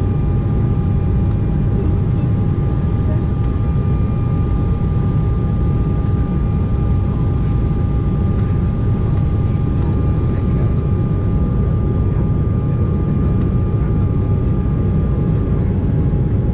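Steady in-flight cabin noise of an Embraer E190 jet airliner: rushing air and the hum of its GE CF34-10E turbofan engines, with a few faint steady high tones over the noise. One of the tones fades out near the end.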